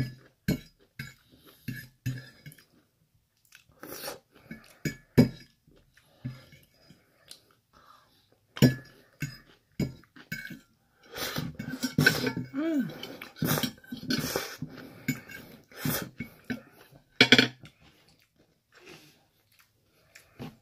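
Metal fork clinking and scraping against a plate in scattered short clicks, with chewing in between.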